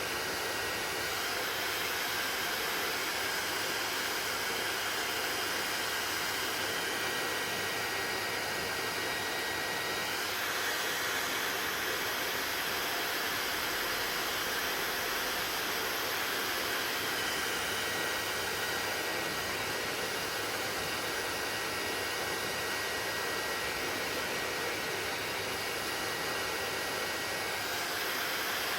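Hair dryer running steadily with a constant rushing hiss; its tone shifts slightly about ten seconds in, again a few seconds later, and near the end.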